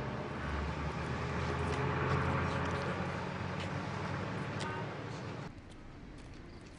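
Street traffic: a passing vehicle's low rumble swells to a peak about two seconds in and slowly fades, then drops suddenly to a quieter background hush.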